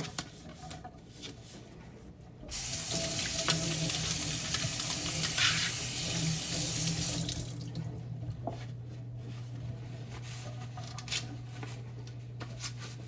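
Kitchen tap running into the sink as a cutting board is rinsed, starting about two and a half seconds in and shut off about five seconds later. A low steady hum and a few light knocks follow.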